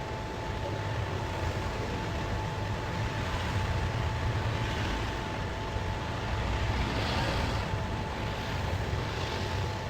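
A machine running steadily: a constant low hum with a thin steady whine above it, and a couple of brief hissing swells near the end.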